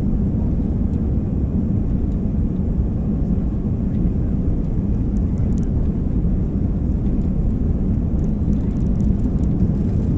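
Cabin noise of an Airbus A320-family jet on its takeoff roll: a steady, loud low rumble of the engines at takeoff thrust and the wheels running on the runway, heard through the fuselage.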